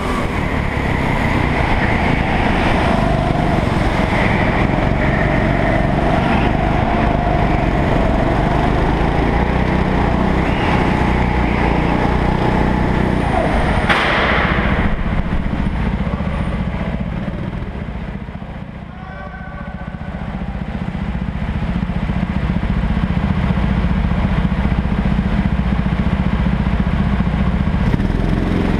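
Go-kart engine running hard, heard close up from onboard, with other karts running nearby. About two-thirds of the way through the revs fall away briefly as the kart slows, then pick up again. A short, sharp knock about halfway through.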